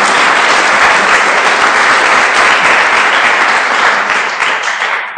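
Audience applauding, a dense patter of many hands clapping that begins to die away near the end.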